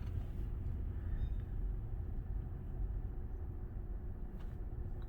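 Steady low rumble of a car idling, heard from inside its cabin, with a faint click a little after four seconds in.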